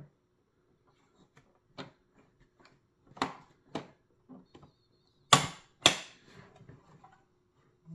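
Scattered clicks and light knocks of a puzzle box being handled and tried after a code is entered. There are two louder knocks, half a second apart, about five and a half seconds in.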